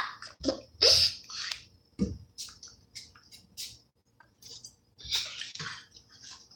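Wet mouth sounds of eating noodles off a fork: short, irregular slurps and smacks.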